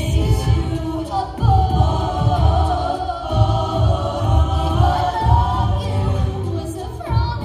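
A cappella vocal group singing in harmony into microphones, amplified through the hall's speakers, with a strong, pulsing low bass part under the upper voices.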